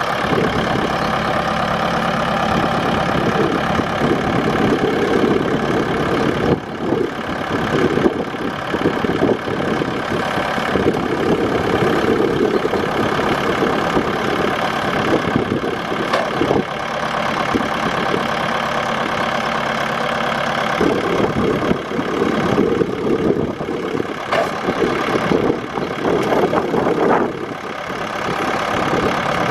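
A tractor's six-cylinder turbo diesel engine running near idle, its sound shifting and dipping briefly several times.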